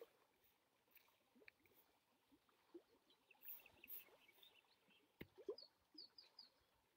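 Near silence: faint outdoor ambience with a few soft ticks and, near the end, four faint short high chirps.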